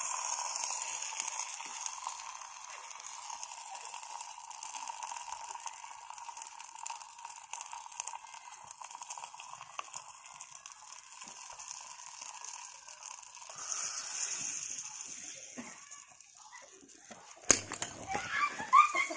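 Steady hissing and crackling of a burning pot of molten plastic and engine oil as it is poured into a drinking glass, fading after about sixteen seconds. A single sharp crack comes near the end.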